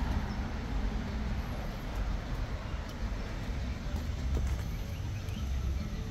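Low, uneven rumble of outdoor background noise, with a few faint clicks.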